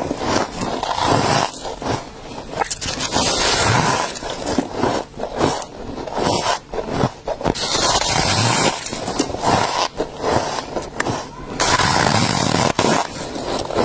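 Close-miked biting and chewing of a lump of soft freezer frost: repeated squeaky crunches, one after another with short gaps.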